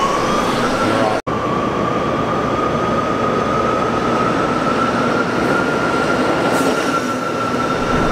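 Electric E-Z-GO golf cart's drive motor whining as it runs, rising in pitch over the first second and then holding one steady high whine over tyre and running noise. The sound cuts out for an instant about a second in.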